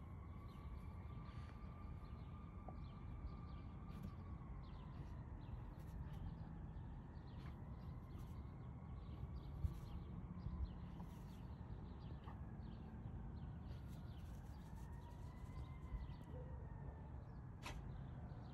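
Faint outdoor background: a low rumble under a faint hum that slowly rises and falls in pitch, with a few light clicks.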